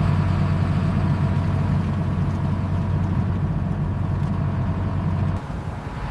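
Peterbilt truck's diesel engine running with a steady deep hum; the low part of the sound drops away somewhat about five seconds in.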